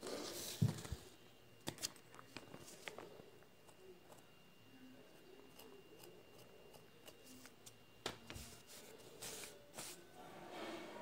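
Pencil scratching on paper, with paper rustling and scattered light clicks from handling the drawing, loudest at the start and again near the end.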